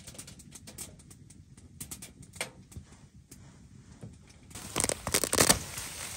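Faint clicks and scrapes of cutlery on plates while eating. About four and a half seconds in, a gusty rush of wind with blowing snow hitting the tent fabric sets in, loudest for about a second, then a steady hiss.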